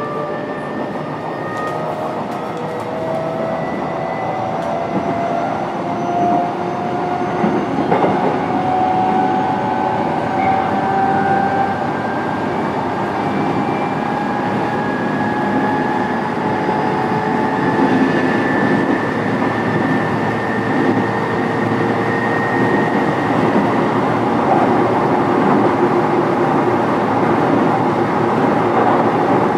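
E129 series electric train heard from inside the car: the Toyo VVVF inverter and traction motors whine in several tones that rise slowly and steadily in pitch as the train gathers speed. Wheel and rail rumble runs underneath.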